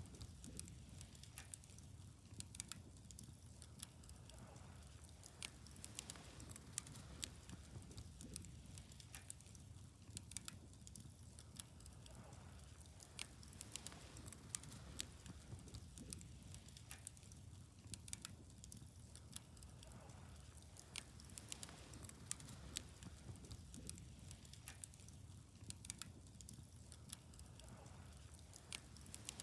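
Wood fire crackling faintly, with irregular sharp pops and snaps.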